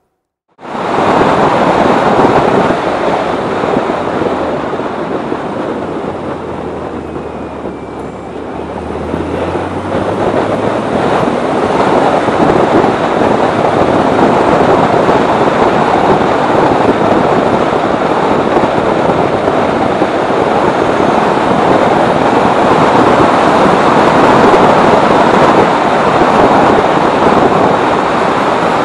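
Car driving at speed: a steady roar of wind and tyre noise that starts suddenly, eases about eight seconds in, then builds again and holds, with a low engine note faintly under it for a few seconds.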